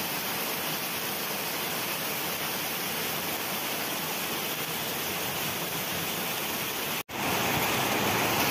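Heavy rain pouring down steadily on grass and ground. About seven seconds in the sound cuts out for an instant and comes back louder.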